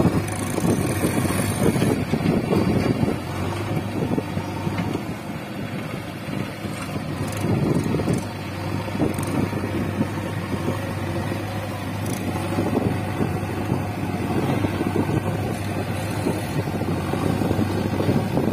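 Diesel engines of a Mahindra 585 DI tractor and a JCB backhoe loader running steadily together while the backhoe works.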